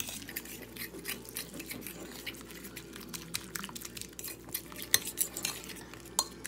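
A spoon scraping and clicking against the side of a bowl in quick, irregular strokes, stirring a thick, wet spice-and-egg-white paste.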